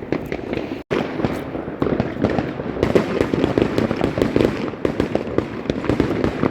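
Many fireworks and firecrackers going off at once: a dense, unbroken crackle of overlapping pops and bangs. The sound cuts out for an instant about a second in.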